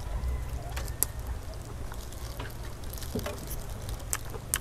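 A person chewing and tearing apart honey-roasted chicken with plastic-gloved hands, picked up close by a clip-on microphone: scattered short clicks and crackles over a steady low hum.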